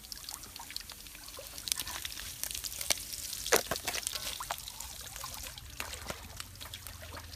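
Greens stir-frying in a steel wok: a steady sizzle, with a wooden spatula scraping and knocking against the pan in many short clicks. The loudest knock comes about three and a half seconds in.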